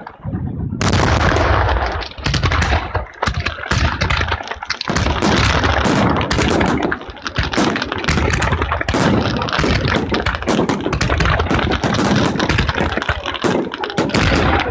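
Firework battery in the Bolognese style (batteria alla bolognese): a dense, unbroken string of rapid firecracker reports and crackling, with a deep rumble underneath. It drops out briefly at the very start, then picks up again about a second in.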